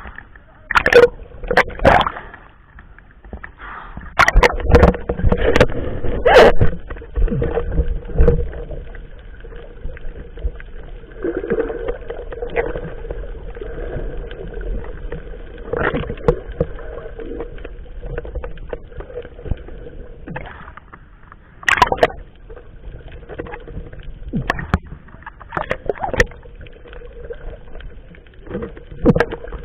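Water splashing and knocking around a fishing boat during net fishing, in irregular bursts, heaviest in the first eight seconds and again about twenty-two seconds in, over a steady hum.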